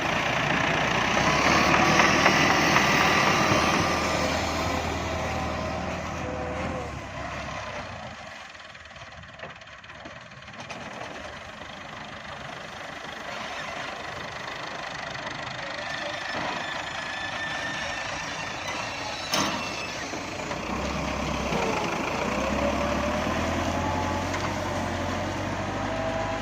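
Tractor engine running while pulling a wheat seed drill. It is louder near the start, fades for a few seconds in the middle, then grows louder again toward the end, with one sharp click about 19 seconds in.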